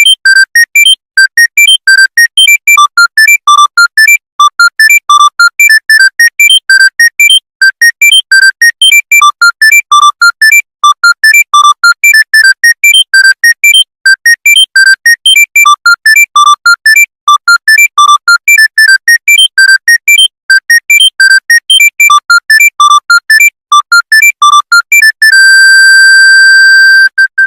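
Electronic smartphone ringtone: a fast melody of short, bright synthesized beeps that ends on one long held tone about two seconds from the end.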